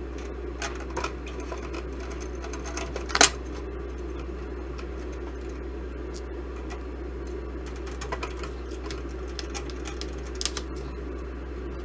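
Screws being worked out of a toaster oven's sheet-metal housing with a screwdriver: scattered light clicks and metal taps, the sharpest about three seconds in and another near the end, over a steady background hum.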